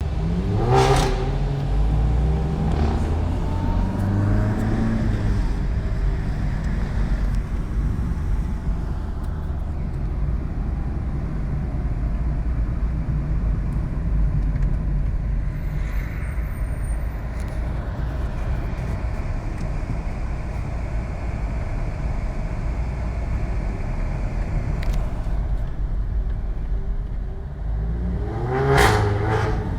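VW Golf GTI Mk7's turbocharged 2.0-litre four-cylinder engine and exhaust, revving up in the first few seconds and then running steadily with a low rumble. Sharp crackles and pops come from the exhaust about a second in and again near the end.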